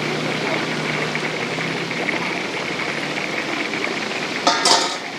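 Steady hiss of deep-frying oil over a low machine hum, with a brief loud clatter about four and a half seconds in.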